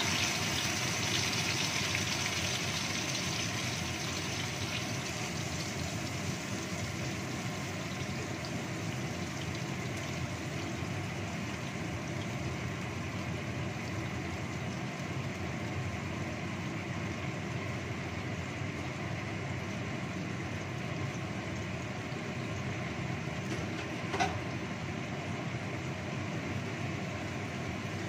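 Blended chili and shallot spice paste sizzling and bubbling in hot oil in a wok, loudest in the first few seconds after it goes in, over the steady drone of a kitchen range hood fan. A short click near the end.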